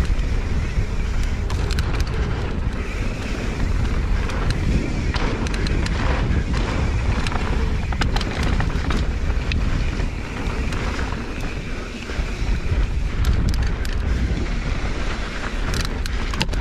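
Wind buffeting the microphone of a camera worn by a rider on a mountain bike descending a dirt singletrack, with the tyres rolling on dirt and the bike rattling over bumps in scattered sharp clicks and clatters.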